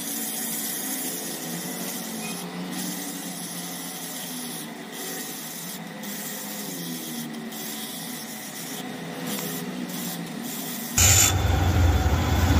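Mounted grinding stone spinning in a drill-press chuck, grinding a hand-held steel ball cage with a steady rubbing hiss, taking a little metal off at a time to fit the bearing. About 11 seconds in, a much louder low rumble starts.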